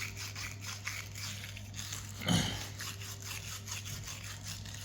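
Pipe cleaning and deburring tool scratching round the inside of a 15mm copper elbow in quick repeated strokes, abrading the surface ahead of soldering. One louder thump a little past two seconds in.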